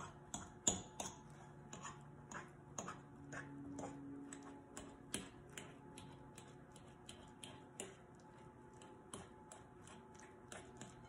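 Fork mashing very ripe bananas in a mixing bowl: a quick, irregular run of light clicks as the tines strike the bowl, about two or three a second.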